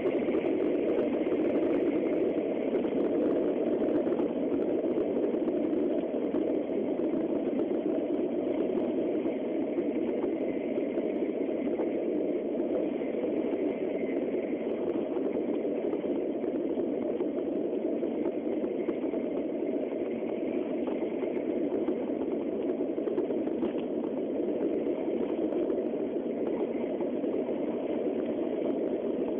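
Steady rumble of a Nozomi Shinkansen bullet train running at speed through a tunnel, heard inside the passenger car.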